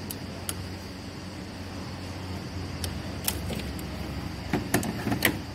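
Pliers and small metal parts of a gear-shift cable adjuster clicking and knocking as its lock is worked by hand: a few sharp clicks about three seconds in and a quick cluster near the end, over a steady low hum.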